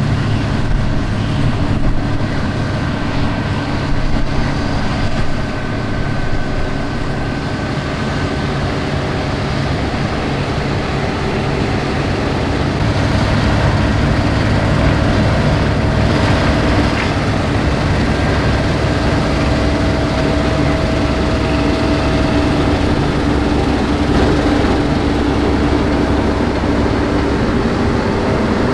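New Holland CR8.90 combine harvester running steadily while harvesting wheat: a continuous engine and machinery drone with several held tones, growing slightly louder about halfway through.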